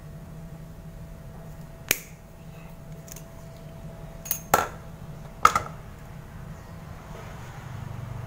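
About four sharp clicks from hand work on a pine bonsai being wired with aluminium wire, spaced between two and six seconds in, over a low steady hum.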